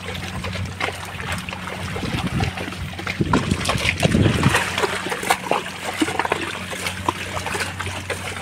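Irregular wet splashing and squelching in water-logged mud along a flooded field track, louder for a stretch in the middle, over a faint steady low hum.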